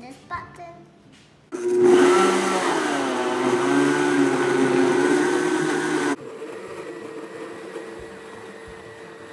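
Blendtec blender puréeing a jar of watermelon chunks. It starts suddenly about a second and a half in and runs loud for about four and a half seconds, its pitch wavering. It then drops abruptly to a much quieter steady hum.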